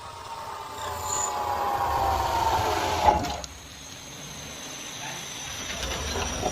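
A power tool working wood: a steady whine with a slightly falling pitch for about two and a half seconds, then a softer noise that slowly grows louder.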